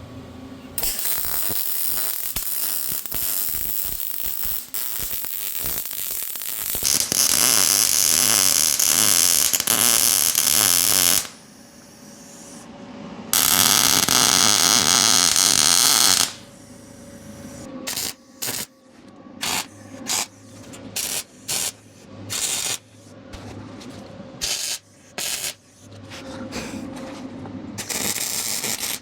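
MIG welder arcing on steel with a crackling hiss: long passes in the first half, then about ten short bursts like tack welds joining the cart frame.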